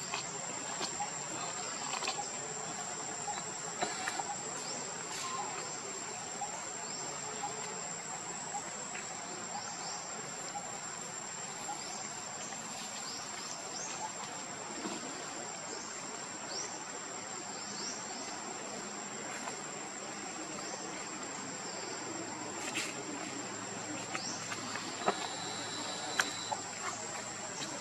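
Outdoor ambience dominated by a steady, high-pitched insect drone, with scattered short rising chirps above it. A few sharp clicks or taps come in the last few seconds.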